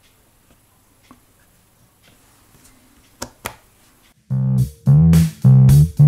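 Faint clicks from handling the pedal, two sharper clicks a little past the middle, then an electric bass guitar through a Behringer BDI21 V-Tone bass amp modeler pedal, set to its 'Solo' sample settings, starts a riff of loud sustained low notes about four seconds in.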